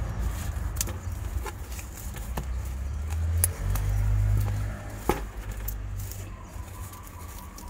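Scattered light clicks and taps from a potted succulent and its packaging being handled during an unboxing. Under them runs a low rumble that swells for about a second near the middle.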